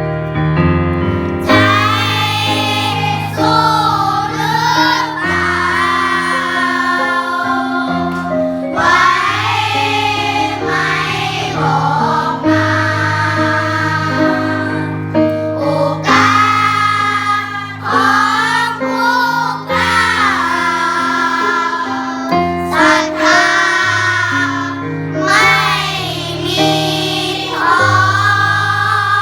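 A singer doing vocal warm-up exercises over sustained keyboard chords, in repeated sung phrases a few seconds long with short breaks between them.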